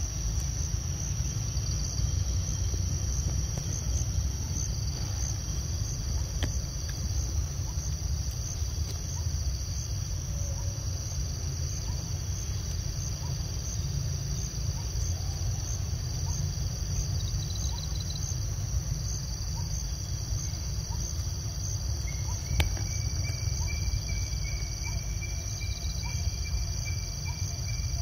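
Steady outdoor insect chorus of cricket-like trilling over a low rumble. A single sharp click comes about three-quarters of the way through, and a thin, slightly rising whistle follows near the end.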